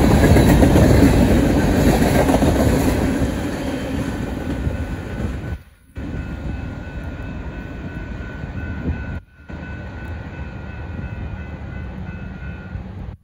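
Union Pacific manifest freight train passing over the crossing, its cars rumbling loudly and then fading after about three seconds as the train goes by. A steady high tone runs from about four seconds in until near the end, and the sound cuts out briefly twice.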